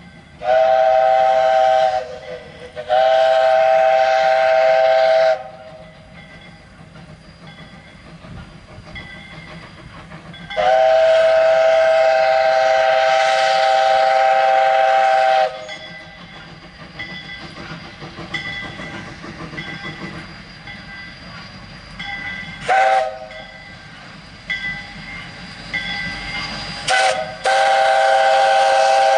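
Steam locomotive chime whistle blowing several blasts, each one a chord of several tones at once: two long blasts, then a longer one of about five seconds, two short toots late on, and a long blast starting near the end. Between the blasts, the quieter running noise of the train.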